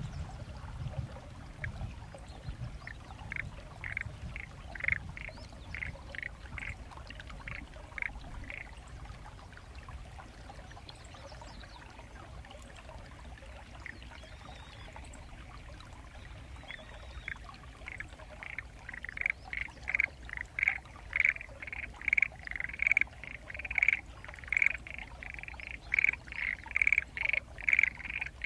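Frogs calling from a flooded rice paddy, which the recordist takes most likely for Japanese black-spotted pond frogs, perhaps mixed with other species. There are scattered croaks at first and a lull, then from about two-thirds of the way in the chorus swells into a fast run of loud croaks, two or three a second.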